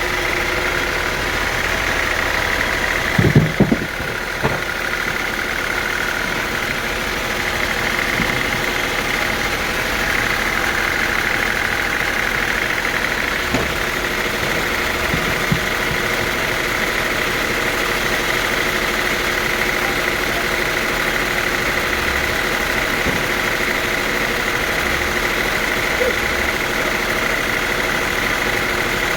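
Sawmill machinery running steadily: an engine hum with a steady high whine. A short cluster of knocks comes about three seconds in.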